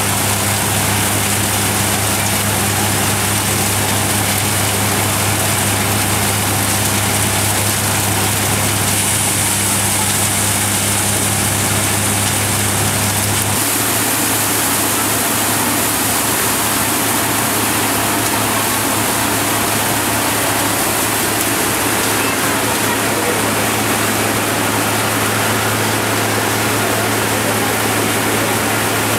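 Multicrop thresher running steadily while threshing grain: a constant machine hum under a continuous dense rushing noise. The hum changes pitch about halfway through.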